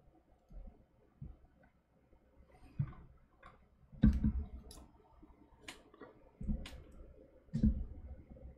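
A computer mouse clicking at a desk, a handful of irregular sharp clicks from about the middle onward, several with a dull low thump underneath.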